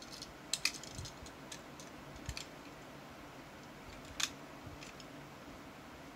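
Small clicks and taps of a diecast toy car being handled and set down on a toy ramp truck's plastic tilt bed, a few light ones in the first two seconds and one sharper tap about four seconds in.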